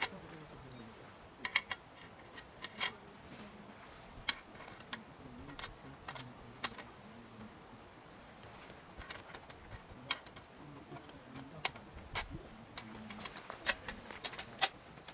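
Irregular sharp clicks and light metallic clinks, a few at a time with pauses between, from metal gear being handled.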